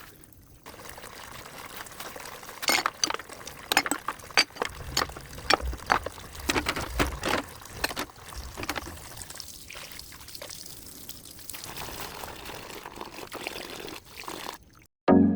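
Water running and splashing, with a string of sharp knocks and clatters for several seconds, then a steadier hiss. Music cuts in right at the end.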